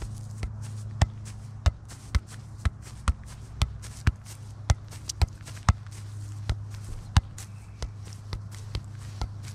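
A soccer ball being juggled on the foot: sharp, dull kicks of the shoe against the ball, about two a second and uneven in strength, over a steady low hum.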